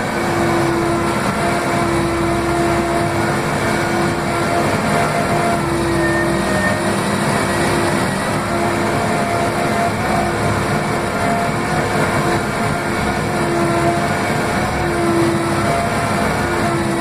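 Case 580M backhoe loader's diesel engine running loudly at a steady speed, heard from inside the cab beside the throttle, with a steady whine over the engine note.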